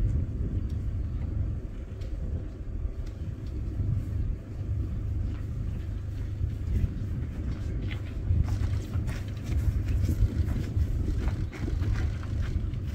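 Vehicle engine idling: a steady low rumble, with a few faint clicks in the second half.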